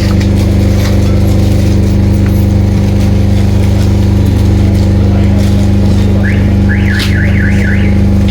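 Loud, steady mechanical hum with a low drone. From about six seconds in, a high rising chirp repeats about three times a second.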